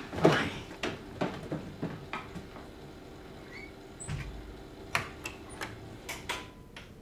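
Footsteps, clicks and knocks of people leaving a room, thick at first and thinning out, then a low thud of a door shutting about four seconds in, followed by a few scattered knocks.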